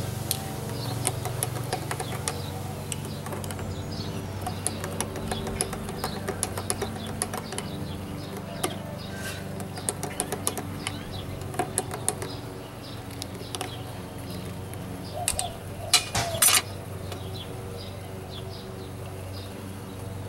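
Metal spoon stirring in a ceramic mug, clinking against its sides in quick irregular clicks. About sixteen seconds in come a few louder ringing clinks as the spoon is laid down on the glass tabletop.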